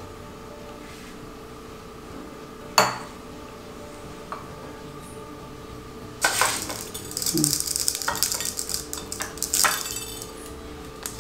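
A spoon clicks once against a glass bowl of melted chocolate. From about six seconds in, confetti sprinkles rattle and crackle for several seconds as fingers press them onto a chocolate-coated biscuit in a bowl of sprinkles.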